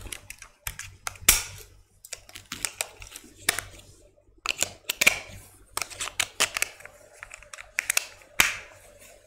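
Irregular small plastic clicks and rattles of a handheld presentation remote being opened and its batteries shifted and reseated, because the batteries have run down.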